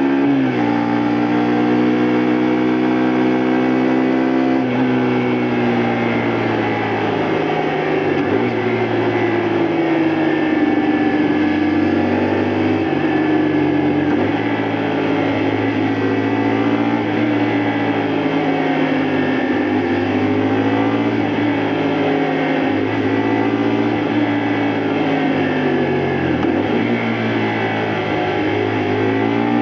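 Honda Varadero XL125V's 125cc V-twin engine running under way, heard from the bike. The revs drop sharply about half a second in, then rise and fall repeatedly with the throttle and gear changes.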